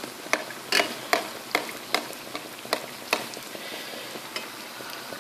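Matlou' flatbreads sizzling steadily in hot oil in a frying pan, with a metal spoon clinking against the pan two or three times a second as oil is spooned over their tops; the clinks stop about three seconds in and the frying hiss carries on.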